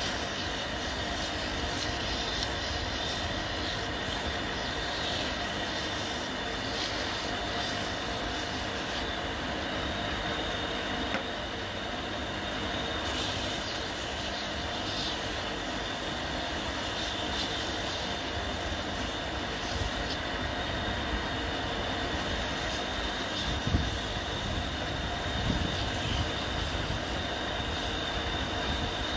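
Small motor spinning a wooden bead on a steel spindle while sandpaper is pressed against the turning bead to smooth and polish it: the motor runs steadily under a high sanding hiss that swells and fades every few seconds as the paper is worked over the bead.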